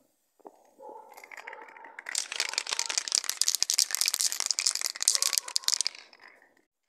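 Aerosol spray paint can being shaken, its mixing ball rattling in quick clicks; the rattling builds about a second in and stops near the end.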